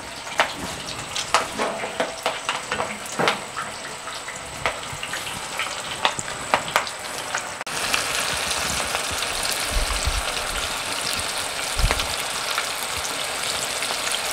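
Garfish balls deep frying in very hot oil in a cast iron Dutch oven: a bubbling sizzle with many sharp crackles and pops, turning to a denser, steadier sizzle about halfway through.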